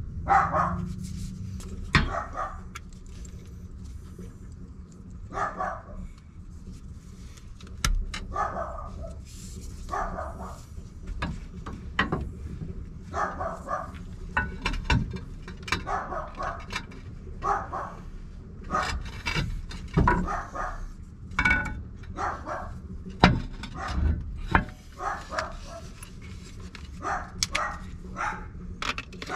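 A dog barking again and again, with short gaps between barks. Scattered sharp knocks and clicks come from pipe and tool handling in between.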